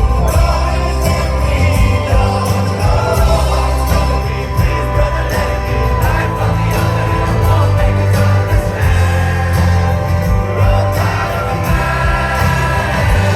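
Live rock band playing with a singer: heavy bass and drums under held chords, continuous and loud.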